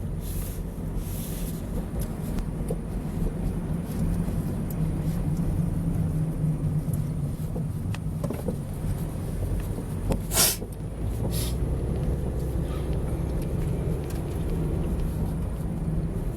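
Steady low rumble of a car driving, with one brief sharp hiss about ten seconds in.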